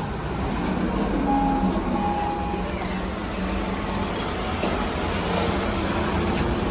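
Steady rumble of city traffic and transit vehicles, with a faint higher tone sounding briefly about a second in.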